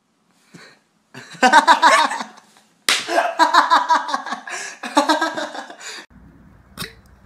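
A girl squealing, then a sharp pop a little under three seconds in as a bottle mouth sucked onto her lips comes off. Laughter follows for about three seconds.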